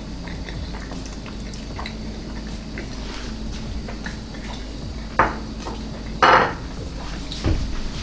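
Utensils clicking and tapping against a dish while eating, with three louder clatters about five, six and seven and a half seconds in, the middle one the loudest.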